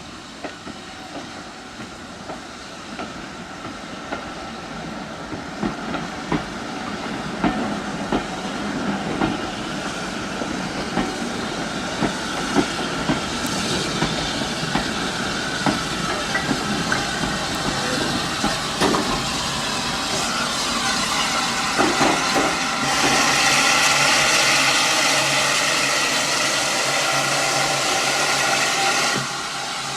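Heritage steam train running closer, wheels clicking sharply and growing louder. About three-quarters of the way in, a loud steady steam hiss starts from the locomotive and cuts off suddenly near the end.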